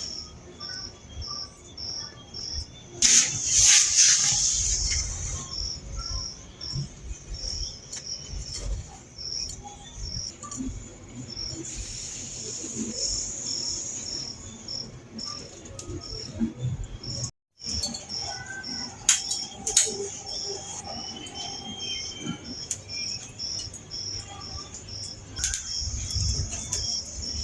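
Cricket chirping steadily in short high pulses, about three a second. About three seconds in, a louder hissing burst lasts a second or two.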